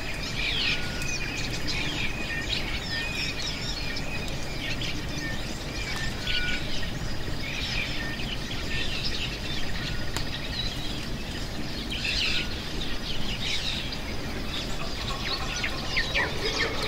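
Many wild birds chirping and calling, short overlapping chirps throughout, over a steady low background noise.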